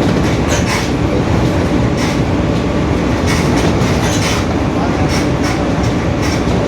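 Mercedes-Benz OF-1721 city bus under way, its differential droning very loud, with light rattles from the body.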